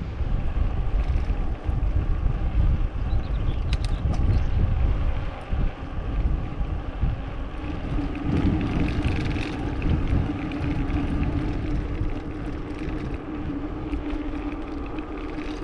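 Wind buffeting the microphone of a moving bicycle, an irregular low rumble. About halfway through a steady hum joins in.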